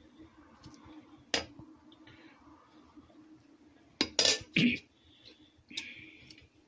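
Metal ladle clinking and knocking against the side of a metal cooking pot as biryani rice is turned: one clink about a second in, a quick cluster of knocks about four seconds in, and one more shortly after.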